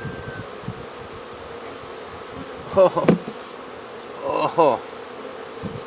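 Honey bee swarm buzzing steadily, an even hum that holds throughout.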